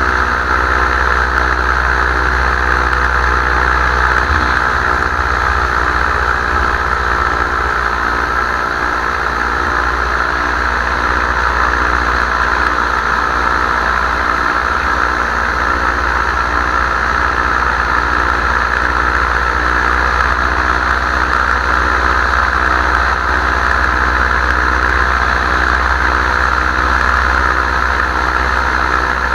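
Paramotor engine and propeller running at a steady throttle in flight, with low wind rumble on the microphone.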